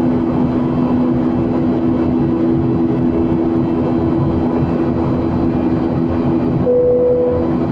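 Steady airliner cabin noise in flight, heard from inside the cabin: an even rush of air with a steady low two-tone drone from the engines. Near the end a brief steady higher tone sounds for under a second.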